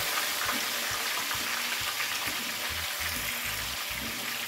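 Beef chuck roast searing in hot oil in a metal roasting pan on a stovetop: a steady sizzle.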